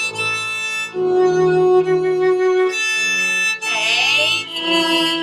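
Viola bowed with a cello bow, playing a beginner exercise of slurred notes across the strings: a string of held notes that change pitch about once a second.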